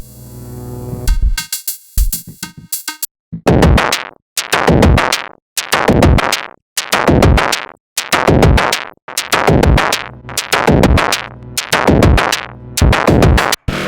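Elastic Drums drum-synthesizer app playing a preset pattern: a held synth tone with a few quick hits, a short break about three seconds in, then a steady run of heavy, long-decaying noisy drum hits, about one and a half per second.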